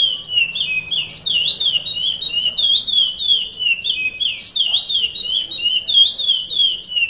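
Male curió (chestnut-bellied seed finch) singing the Paracambi 'rompe nuvem' song: a continuous run of clear whistled notes, each dipping and rising in pitch, about three a second without a pause.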